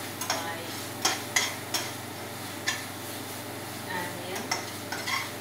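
A metal turner stirring frying onions in a stainless steel pan, scraping and clinking against the pan about seven times at an irregular pace, over a low frying sizzle.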